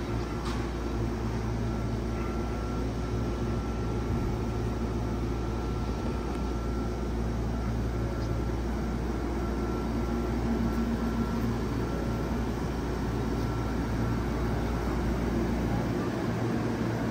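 Steady running hum of a Hankyu electric train, with no pitch change and a faint high whine that fades out near the end.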